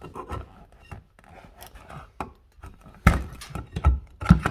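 Hand work at an electrical box in a wall opening: scattered clicks, scrapes and small knocks as the box and wires are handled, with a few sharper knocks about three seconds in and near the end.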